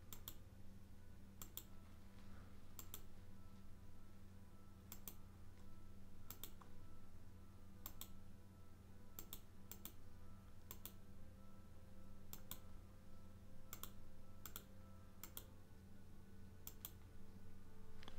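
Computer mouse clicking about once a second at an uneven pace, each click placing an anchor point with the pen tool, over a low steady hum.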